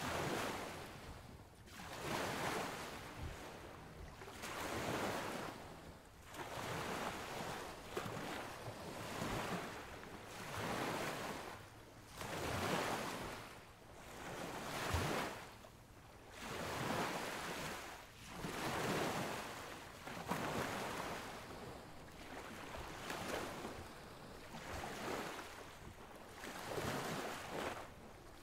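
Sea surf washing in, a swell of rushing water noise about every two seconds.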